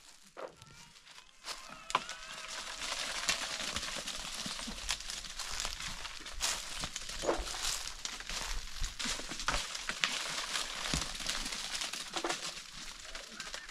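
Dry fallen oak leaves and acorns rustling and crackling, with many small irregular clicks, as acorns are gathered by hand from the ground.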